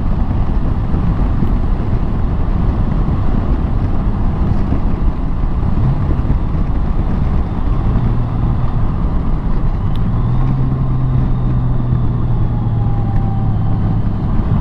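Wind rush and road noise riding a 2021 Honda Gold Wing GL1800's flat-six at speed, with a steady engine hum coming through from about eight seconds in as the bike slows. The engine note steps up around ten seconds in as it drops a gear.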